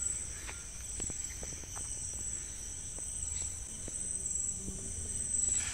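Crickets chirping: a steady, high-pitched trill that swells into brighter pulses every second or so, with a few faint ticks.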